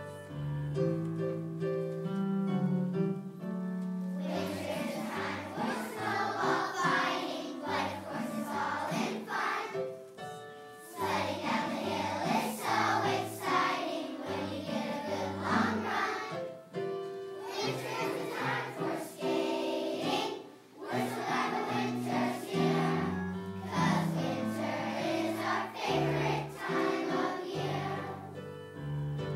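A children's choir singing a song with piano accompaniment. The accompaniment plays alone at first and the voices come in about four seconds in, singing in phrases with short breaks between them.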